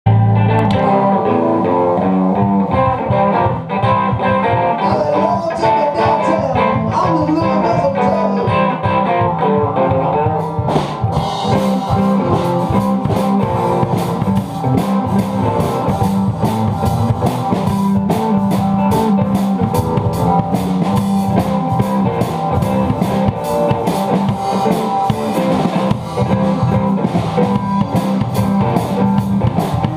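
Blues-rock music: a guitar plays on its own for about the first ten seconds, then a drum kit with cymbals joins in at a steady beat.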